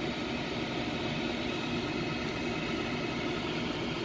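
Steady mechanical drone of running machinery with a constant low hum.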